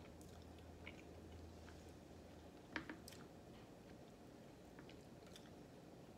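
Very faint eating sounds: soft chewing and small wet clicks as rice and stew are picked up by hand, with one sharper click nearly three seconds in.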